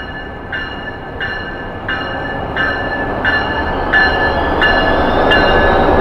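Brightline passenger train passing at speed: the rumble of wheels on rail grows louder as the Siemens Charger locomotive and then the coaches go by. Over it a bell rings steadily, about once every 0.7 seconds.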